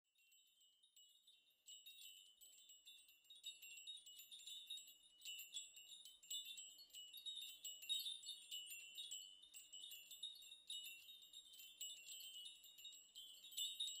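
Faint wind chimes tinkling, many light high strikes overlapping, beginning about two seconds in and growing a little louder, with a faint low hum beneath.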